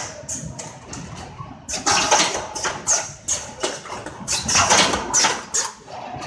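Automatic fixed-knot fence-weaving machine running, its mechanism clattering in quick runs of sharp metallic strokes that come in groups about every two and a half seconds.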